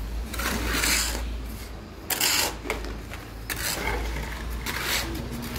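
Small steel trowel scraping and spreading white cement mortar to bed a stone flag, in several short rough scrapes.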